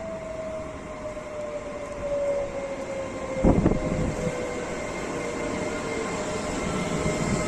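Trenitalia ETR 104 "Pop" (Alstom Coradia Stream) electric multiple unit pulling into a station, its electric drive whining in tones that fall slowly in pitch as it slows, over a running rumble. A brief low thud about three and a half seconds in.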